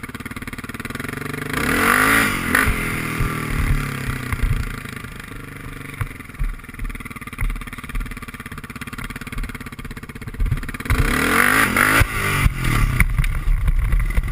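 Yamaha Raptor 660 quad's single-cylinder four-stroke engine revving hard about two seconds in, running at lower revs through the middle, then revving hard again near the end as the quad lifts its front wheels into a wheelie, with choppy on-and-off throttle bursts.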